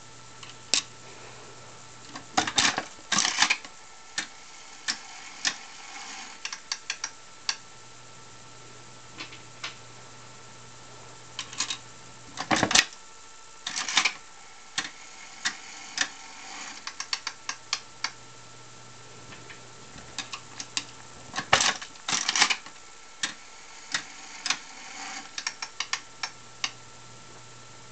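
Mills Vest Pocket 5-cent slot machine being played: sharp metallic clacks as the coin slide and reel mechanism are worked, followed by runs of lighter ticking as the reels spin and stop. This happens three times.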